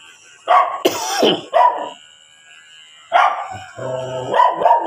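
A dog barking several times in short loud calls, with a longer drawn-out call near the end.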